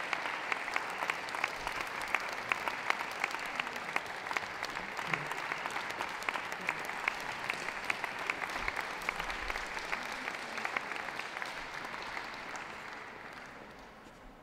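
Audience applauding, a dense patter of hand claps with single sharp claps standing out, dying away near the end.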